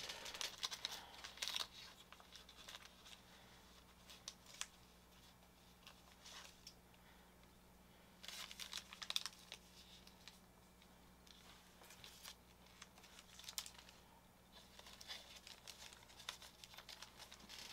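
Faint crinkling and rustling of trading cards and their plastic packaging being handled, in short bursts with small clicks and pauses between.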